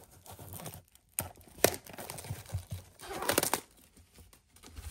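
Clear plastic seal being picked at and torn off a small cardboard box, crinkling and crackling, with a few sharp snaps and a denser crackle about three seconds in.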